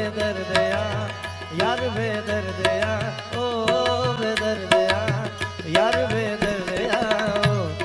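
Instrumental music of a sad Hindi song ringtone: a melody with sliding, bending notes over light percussion and a steady bass line.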